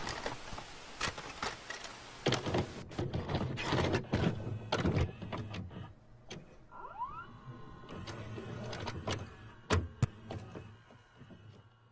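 Videocassette player mechanism loading a tape: a run of mechanical clicks and clunks over a low motor whir, with a short rising whine about seven seconds in.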